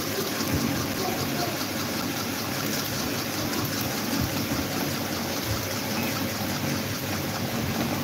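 Several electric fans running together, a pedestal fan and plastic desk fans: a steady rush of moving air over the hum of their motors.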